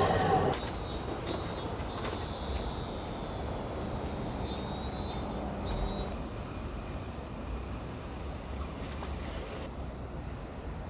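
Steady outdoor background noise after a louder pitched sound cuts off sharply about half a second in, with a faint high chirping near the middle.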